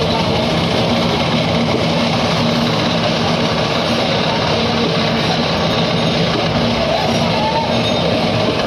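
Meat band saw running steadily as its blade slices through chunks of tuna, a constant mechanical hum and whir with no pauses.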